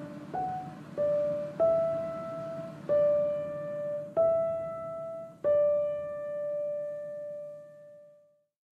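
Background music: slow piano notes, about six in all, each struck and left to ring, the last one fading out near the end.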